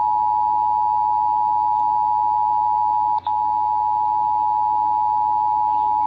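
Emergency Alert System attention signal, a steady two-tone alert sound, played through a small Midland emergency radio's speaker. It marks the start of the monthly EAS test broadcast. The tone drops out briefly about three seconds in.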